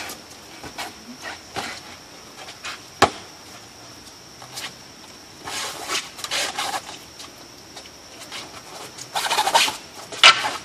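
A wooden staff swung and thrust in a xingyi staff form: whooshing rushes as it cuts through the air, with scuffing footwork and a few sharp knocks, the loudest about three seconds in.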